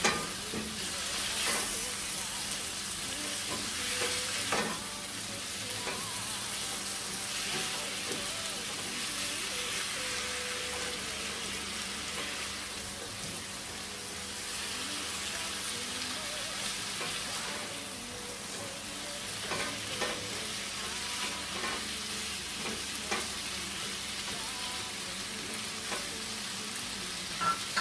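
Shrimp and sliced vegetables sizzling steadily in a nonstick frying pan, stirred and tossed with a spatula that clicks and scrapes against the pan now and then.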